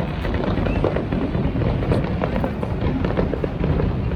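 Fireworks display: a dense low rumble from the bursts, with many sharp crackling pops, over music playing in the background.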